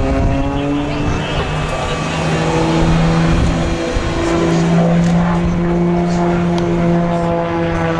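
Aircraft engine running with a steady droning hum that steps up slightly in pitch about two seconds in and again about four seconds in.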